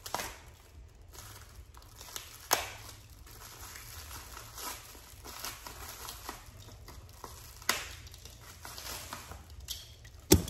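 Crinkly metallic plastic packaging being cut open with a blade and handled: a continuous irregular crackling rustle, broken by a few sharp clicks and snaps, the loudest near the end.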